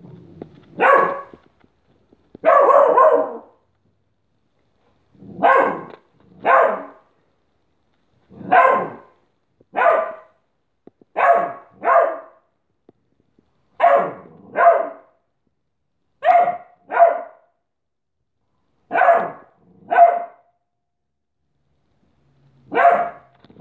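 Beagle play-barking at its own reflection in a mirror: short, loud barks, mostly in pairs, a pair every two to three seconds.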